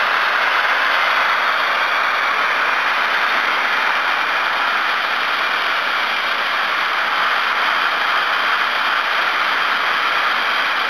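Soda blaster's nozzle blasting steadily, a constant loud hiss of compressed air and baking-soda media stripping urethane paint and primer from a panel.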